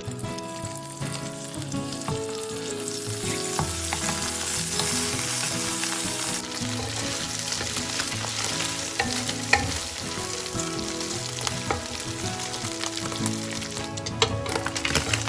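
Food frying in hot oil in a pan, sizzling, with a utensil stirring and clicking against the pan. The sizzle swells about three seconds in and dies back near the end.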